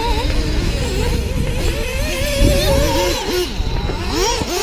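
Several radio-controlled off-road racing cars' motors revving up and down as they race, their pitches rising and falling and overlapping.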